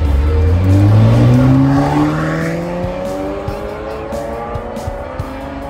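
A high-performance car's engine accelerating hard away from close by, its note climbing steadily in pitch for about three seconds, then rising more gently and fading slightly as it draws away.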